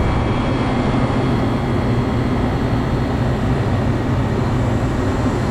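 Refrigeration condensing unit running: a steady drone from its condenser fan, with an even low hum beneath.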